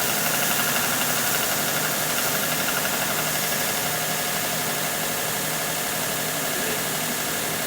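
Belt sander running steadily, with a high hiss as a steel screwdriver shaft is dragged across the abrasive belt to clean up its surface.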